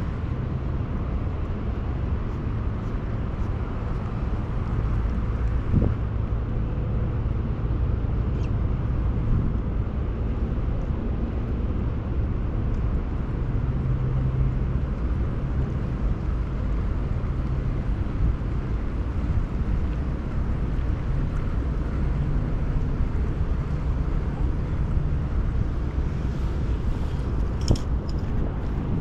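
Steady outdoor rumble by the water, with a low hum that swells and fades several times, and a few faint clicks near the end.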